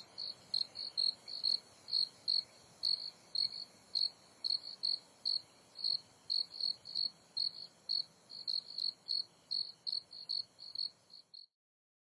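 A cricket chirping steadily, roughly three short chirps a second at one high pitch, over a faint hiss; it cuts off suddenly just before the end.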